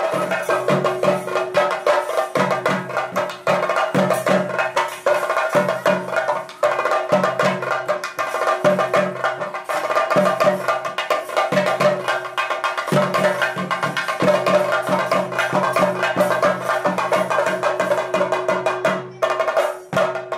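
Rapid, continuous chenda drumming as theyyam accompaniment, with dense fast strokes and a steady held note running underneath.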